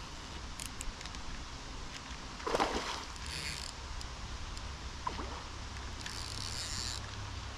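Water splashing and sloshing as a hooked fish is played at the surface, over a steady low rumble. The loudest splash comes about two and a half seconds in.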